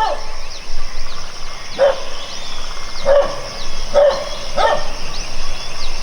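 Short, loud animal calls, five or six of them about a second apart, over a steady high insect drone with quick falling chirps.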